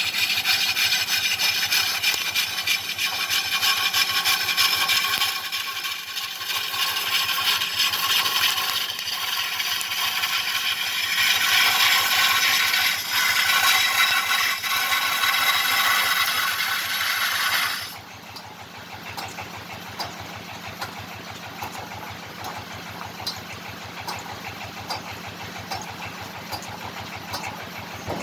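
Wood lathe turning a fruit-wood kendang drum body: a cutting chisel scrapes loudly against the spinning wood, then is lifted off about two-thirds of the way through, leaving the lathe running on with a quieter steady hum.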